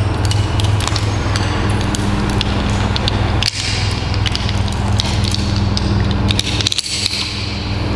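Scattered metallic clicks and clinks of carabiners and rope-access devices being handled and clipped, over a steady low hum.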